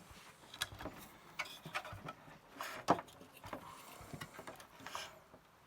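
Plastic case parts of a Commodore MPS-801 dot-matrix printer being handled and fitted back together: irregular light clicks and knocks, the sharpest about three seconds in.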